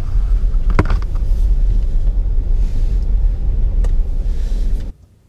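Loud, uneven low rumble inside a parked car, with a couple of sharp clicks, cutting off abruptly near the end.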